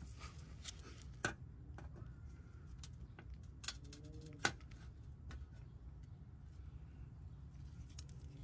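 A few sharp, faint clicks, the loudest about a second in and near the middle, as a small flathead screwdriver turns the turn-tab fasteners on a Honda Accord's underbody skid plate to unlock them, over a low steady background rumble.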